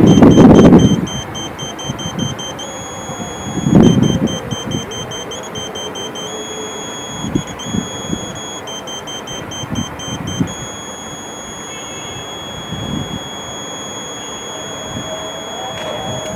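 Satellite antenna pointing tone used while fine-pointing the dish, its pitch and rhythm following received signal strength. It is a high beep that comes in quick pulses and at times holds steady, holding longest from about ten seconds in. Two loud low rumbles of handling noise fall at the start and about four seconds in.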